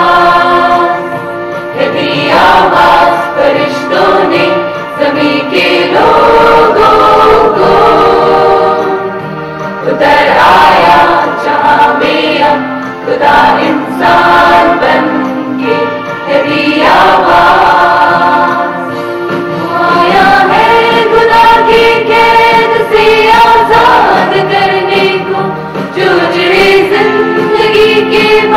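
Mixed choir of men's and women's voices singing a Christmas carol in phrases a few seconds long.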